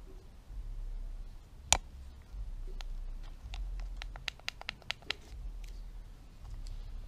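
Hard plastic candy-dispenser toy clicking and scratching as it is handled and twisted in the hand: one sharp click a couple of seconds in, then a quick run of about ten clicks.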